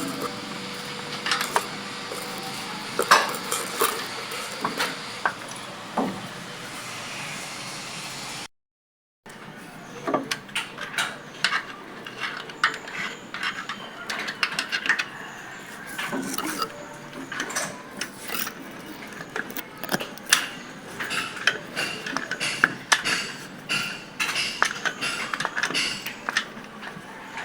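Metal hand tools clinking and tapping irregularly on the Ford 5000 tractor engine's valve gear while it is worked on cylinder by cylinder, most likely while the valve clearance is set. The sound cuts out completely for under a second about eight seconds in.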